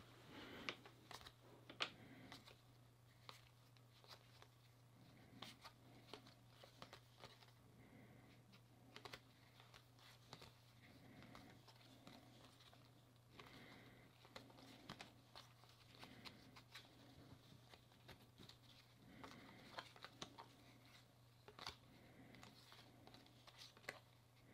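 Faint, scattered clicks and rustles of baseball cards being thumbed one by one off a stack by hand, over a low steady hum.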